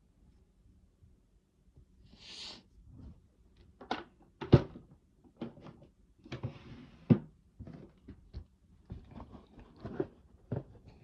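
A person sneezing in a run of short, stifled sneezes, each a brief sharp snap, with quick hissing breaths between them. The first breath comes about two seconds in, and the loudest sneezes come about four and a half and seven seconds in.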